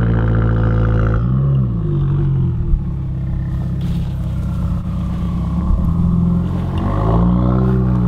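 Subaru WRX's turbocharged flat-four engine running steadily, revving up and back down briefly about a second in and again near the end.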